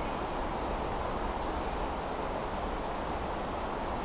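Steady low rushing noise, with a brief high chirp near the end.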